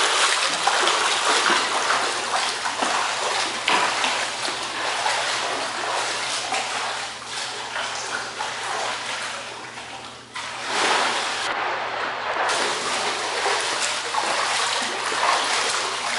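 Water splashing and sloshing as a swimmer strokes through a pool, with a short lull about ten seconds in.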